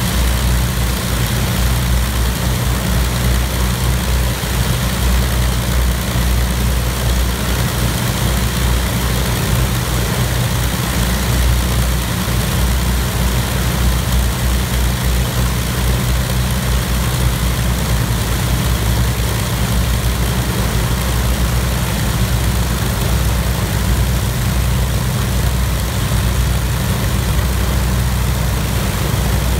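Avro Lancaster's four Rolls-Royce Merlin V12 piston engines running steadily at low power, a loud, even, low drone with the propellers turning.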